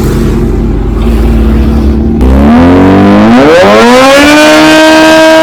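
Kawasaki Z H2's supercharged inline-four running through an Orion aftermarket exhaust. It idles, then about two seconds in it is revved up, the pitch climbing and then held steady at high revs.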